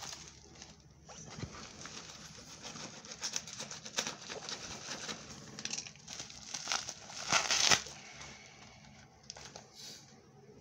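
Plastic bubble wrap crinkling and rustling as it is pulled off a cardboard-wrapped parcel, in a run of short crackles with a louder burst about seven and a half seconds in.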